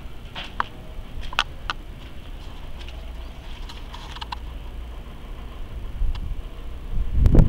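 Outdoor ambience picked up by a camera's built-in microphone: a steady low rumble with scattered short clicks and chirps, swelling into a louder low rumble about seven seconds in.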